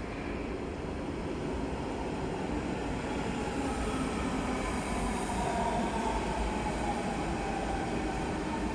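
Train running through a station: a steady low rumble of rail noise with faint high-pitched tones above it.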